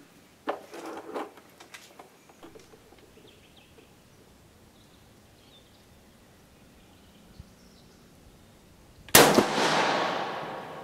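Steyr M95 carbine being readied, with a few metallic clicks from its bolt about half a second in. About nine seconds in comes a single rifle shot from an 8x50mmR reload, with a long echo dying away after it.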